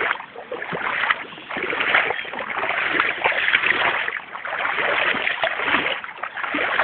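Wellington boots wading through shin-deep floodwater, sloshing and splashing with each stride about once a second.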